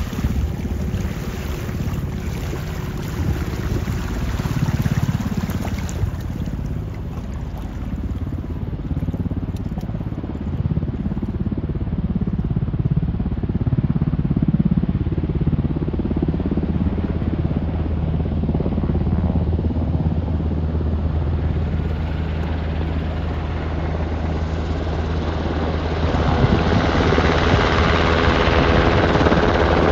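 Helicopter running close by, a steady low rotor and engine sound that grows louder over the last few seconds, with wind noise on the microphone.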